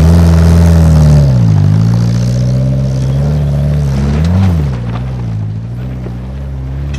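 Dutton Melos kit car's 1598cc engine revving hard as it climbs a steep, rocky trials hill. The revs dip about a second and a half in, blip up sharply around four seconds in, then settle at a steadier pull.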